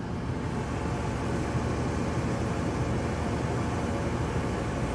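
Whirlpool electric clothes dryer running: a steady hum and whoosh from its drum and blower motor.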